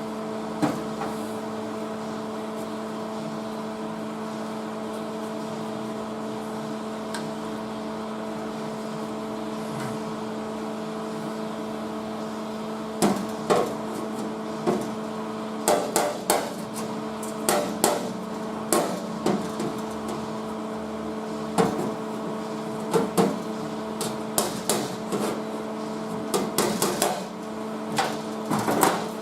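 MIG tack welds being stitched into the car's sheet-metal floor panels: many short, sharp bursts in irregular clusters, starting about halfway through, over a steady electrical hum.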